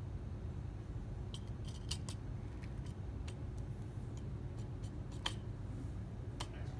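White plastic instrument handle being set into a bench-top assembly fixture: a handful of light plastic clicks and knocks, the sharpest about five seconds in, over a steady low hum.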